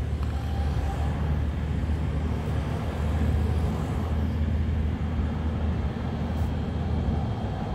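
Steady low outdoor rumble without distinct events.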